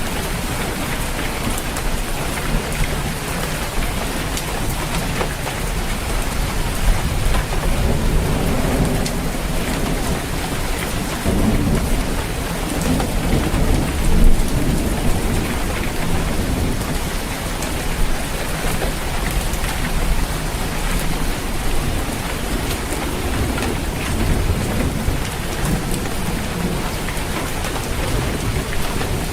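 Steady heavy rain falling on a roof, with low thunder rumbling that swells through the middle.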